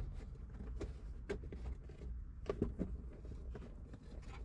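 Scattered small clicks and taps from hands fitting a hood release cable end and its retaining nut into the mounting hole, over a faint low rumble.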